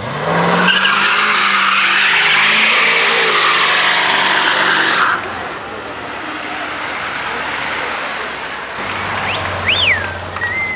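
A car launching hard down the street: its engine revs up while the tyres squeal for about five seconds, then the squeal cuts off abruptly. Afterwards a lower engine runs steadily, with a couple of sharp high whistles near the end.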